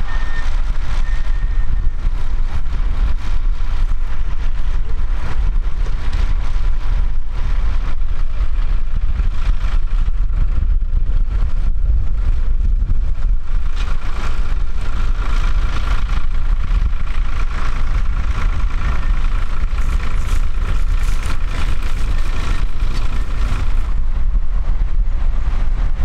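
Diesel farm tractor engines running steadily under load while pulling ploughs through the soil, with a steady whine above the engine sound that is strongest in the second half.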